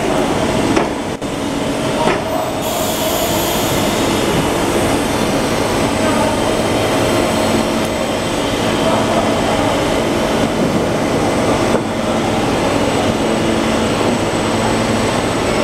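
JYJ 550 butyl rubber tape hot-melt extrusion coating machine running: a steady, loud mechanical hum and rumble from its rollers and drives, with a couple of steady humming tones held throughout.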